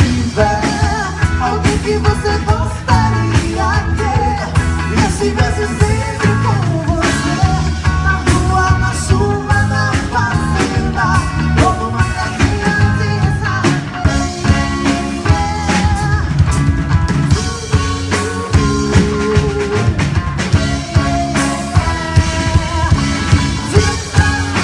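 A band playing an upbeat dance song: a drum kit keeps a steady beat under bass and melody instruments.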